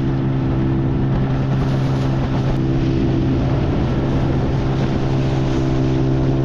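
Motorboat's outboard motor running at a steady speed, a constant-pitched hum over the rush of wind and water.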